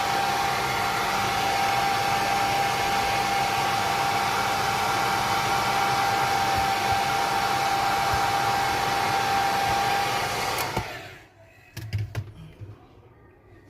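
Hot-air blower running steadily with a constant whine, heating the phone's back cover to soften its adhesive so the back can be removed. It switches off about eleven seconds in, followed by a few light handling knocks.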